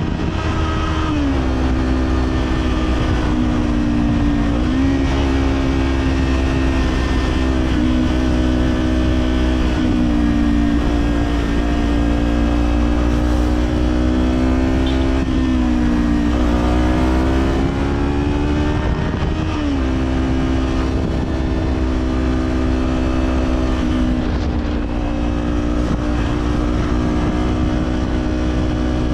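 Kawasaki Z400 parallel-twin engine through an Orion Katya slip-on exhaust, running under way. The engine note dips and climbs back several times as the throttle is rolled off and on, over a steady low rumble of wind.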